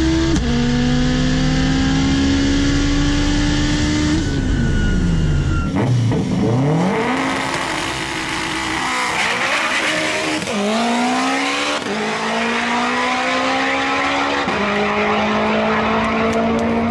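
Turbocharged 2.2-litre Honda K-series four-cylinder of an all-wheel-drive Acura RSX drag car at full throttle down the strip. Its pitch climbs in each gear and drops back at each upshift, several times over.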